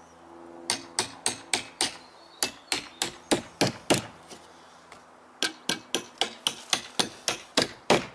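Hammer knocking nails back in on a timber fence panel by its post, in two runs of quick sharp strikes, about three a second, with a pause of about a second and a half in the middle.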